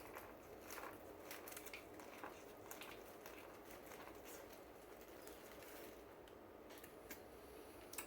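Faint chewing, with scattered small crunchy clicks, of someone biting into and eating grilled corn on the cob.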